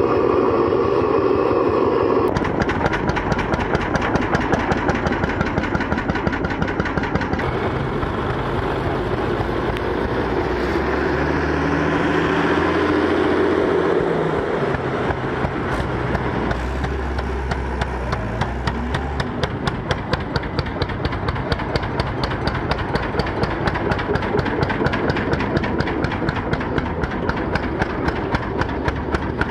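Old tractor engines running, with a rapid, even exhaust beat through most of the clip. The sound changes abruptly several times as different tractors are heard.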